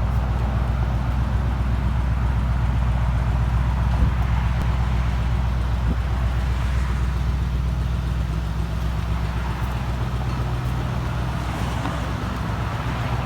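Ford Mustang engine running steadily, listened to for a suspected abnormal tick.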